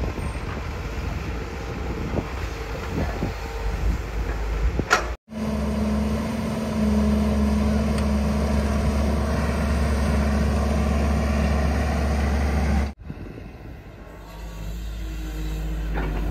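JCB 205 tracked excavator's diesel engine running under load while it digs, with knocks from the bucket and boom. The sound breaks off abruptly twice, and in the middle stretch the engine holds a steady, even drone.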